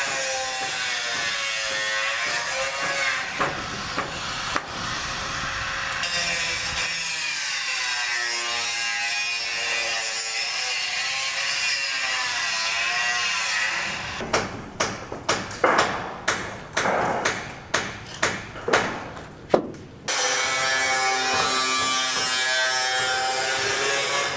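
A power tool running, its pitch sagging and rising as it bites and frees, broken in the middle by a run of about a dozen sharp knocks, roughly two a second, before the tool runs again.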